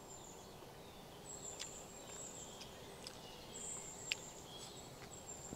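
Quiet outdoor background: a faint high-pitched insect buzz that comes and goes, with a few soft clicks, the sharpest about four seconds in.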